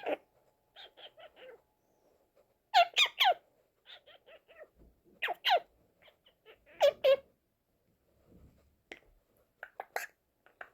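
Hahn's macaw making short chirping calls in quick runs of three or four notes with quiet gaps between, the loudest runs about 3, 5.5 and 7 seconds in, followed by a few faint clicks near the end.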